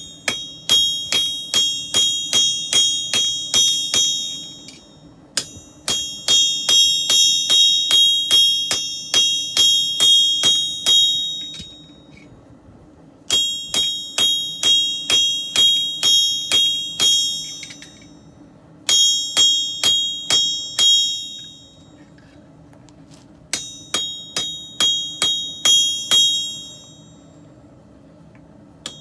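Hand hammer striking steel on an anvil in five runs of steady blows, about two to three a second, separated by short pauses. Each blow rings high and clear, over a steady low hum.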